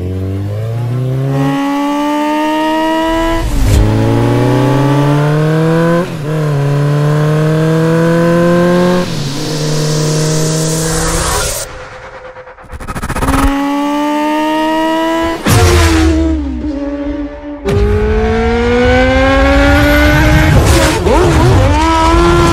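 Sport motorcycle engine accelerating hard through the gears: its pitch climbs steadily in each gear and drops at each of several upshifts a couple of seconds apart. There is a short break about halfway through.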